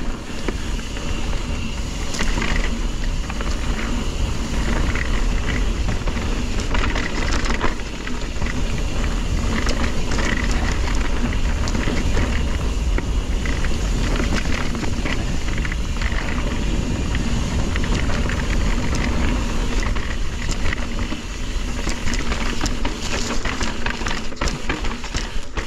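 Mountain bike being ridden on a dirt trail: tyres running over dirt and rocks, with many small clicks and rattles from the bike and a steady wind rumble on the microphone.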